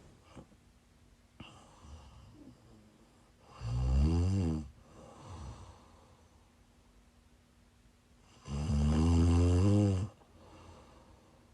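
A woman snoring in her sleep while sick: two loud, pitched snores about five seconds apart, the second one longer, with quiet breathing between them.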